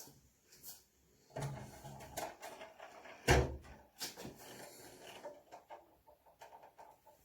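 Irregular knocks, clicks and rattles of hard objects being handled, with one heavy thump about three seconds in.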